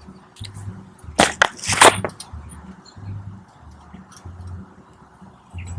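Close handling noise of small cosmetic packaging: two loud, sharp crackles a little over a second in, with lighter clicks scattered through. A faint low pulsing hum runs underneath.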